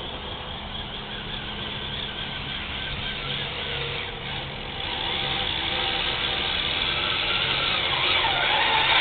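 Clodbuster RC monster truck's electric motors and gearboxes whining as it drives, getting steadily louder as it comes closer. Near the end the whine swoops up and down in pitch.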